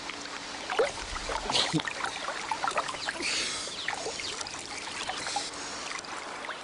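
Water sloshing and splashing as a person wades and sweeps his arms through waist-deep pool water, with many small plops and two brief louder surges of splashing.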